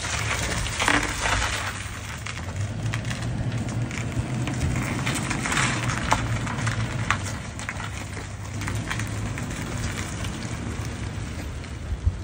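Toyota Tacoma pickup towing a heavily loaded tandem-axle dump trailer past and away: a steady low engine hum under a rough, crackling noise from the tyres and trailer, with scattered sharp clicks.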